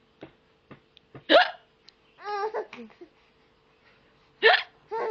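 A woman hiccuping: two sharp, loud hics, one about a second in and another near the end. Between them a baby laughs, and it laughs again after the second hic.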